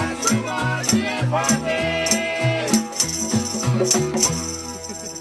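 Vanuatu string band playing: a steady plucked bass line, a rattling percussion beat and voices singing together. The music thins out and gets quieter about four seconds in.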